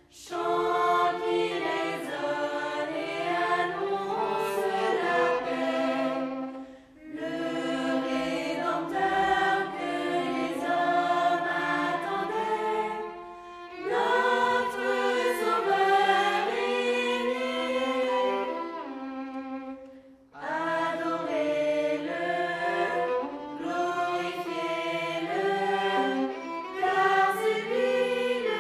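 Young mixed choir singing a Christmas song in French, with a violin accompanying, in long phrases broken by three short pauses.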